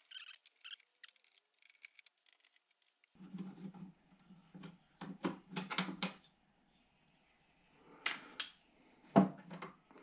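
Light metallic clicks and clatter from a screwdriver and small screws and parts being handled on a vintage stereo receiver's metal chassis. Sparse ticks at first, then several short bunches of clicks.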